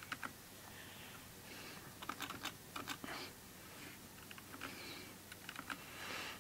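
Faint typing on a computer keyboard: irregular light key clicks, some in quick runs of several keystrokes.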